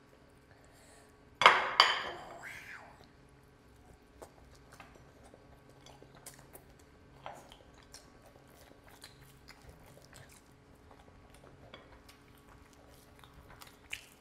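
Fingers tearing cooked goat head in curry and mixing it with rice: soft wet clicks and squishes throughout, with chewing near the end. About one and a half seconds in there is a loud, sharp double snap with a short ringing tail, the loudest sound of all.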